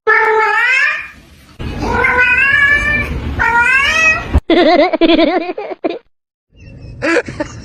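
A cat meows three times in long, bending calls, then makes a lower, wavering warble for about a second and a half.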